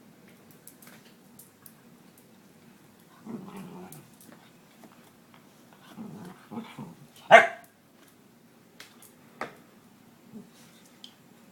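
A dog growling low in two short spells, then giving one loud bark about seven seconds in and a shorter sharp sound a couple of seconds later.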